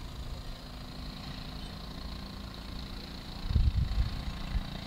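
Wind rumbling on the microphone, with a stronger gust about three and a half seconds in.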